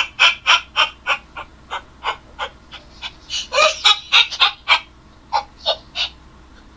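A person laughing in short, high-pitched bursts, about three a second, coming thicker and faster around the middle and trailing off near the end.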